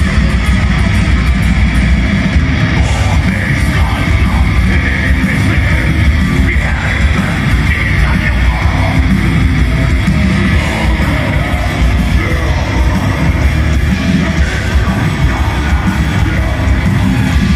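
Black metal band playing live and loud: distorted electric guitars, bass and drums, with yelled vocals over them.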